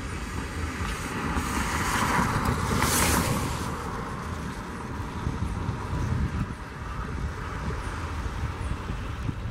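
Airbus A319 jet engines running as the airliner rolls on a wet runway, with wind rumbling on the microphone. The rushing gets louder and hissier about two to three seconds in, then settles.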